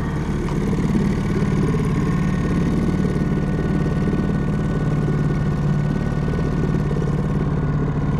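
Small fishing boat's engine running steadily at an even speed, with no revving, just after it has been got going.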